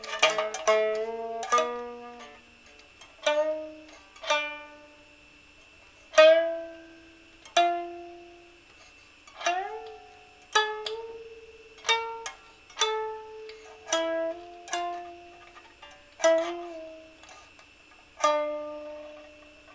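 Slow solo improvisation on a plucked string instrument: single notes and short two- or three-note figures, each plucked sharply and left to ring and fade before the next.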